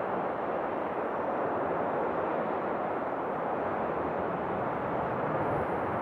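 Steady rushing roar of airliner jet engines heard outdoors in strong gusty wind, the wind buffeting the microphone.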